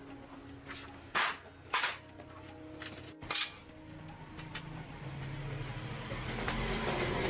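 Three sharp metallic clinks of hard parts or tools knocked together, about a second and a half apart in the first half. A low steady hum then builds toward the end.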